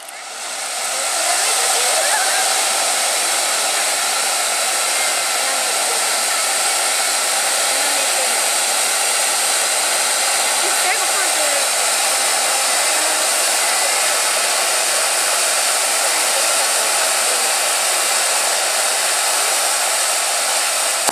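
Hand-held tube firework (tezutsu hanabi) spraying a fountain of sparks: a loud, steady rushing hiss that builds up over the first second or so and then holds.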